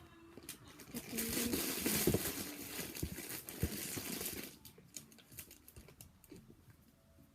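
Hands rummaging through squishy toys, rustling and crinkling, with scattered light clicks. The rustle thickens about a second in and fades out about four and a half seconds in.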